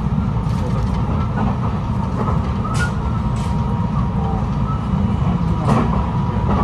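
Running sound inside a JR West 223 series 6000 electric multiple unit at speed: a steady low rumble of wheels on rail, with three sharp clacks from the track and a faint steady whine.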